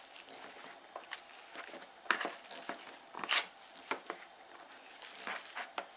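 Metal potato masher pressing hot boiled potatoes in a plastic bowl: irregular soft squishing strokes with light knocks, the loudest about three seconds in.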